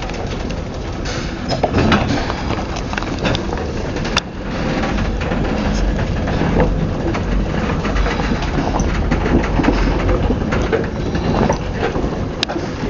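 A locomotive moving railway carriages slowly: a steady low rumble with scattered clicks and knocks, growing louder about four and a half seconds in.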